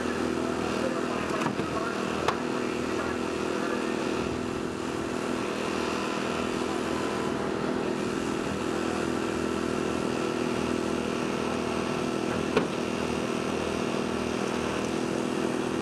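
Engine running steadily at a constant speed, as a power unit does when driving hydraulic rescue tools, with a couple of sharp snaps, the loudest late on.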